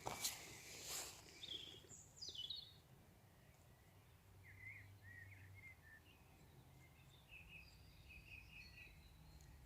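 Faint birds chirping in short scattered calls, over a low steady background hum, with a few sharp clicks in the first second.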